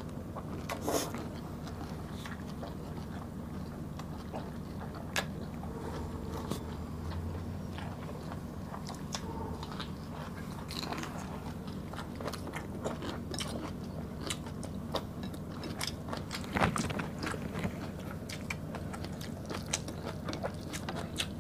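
Close-miked chewing and biting by two people eating beef caldereta with rice and stir-fried bok choy by hand, with scattered sharp mouth clicks throughout, loudest about three quarters of the way in, over a low steady hum.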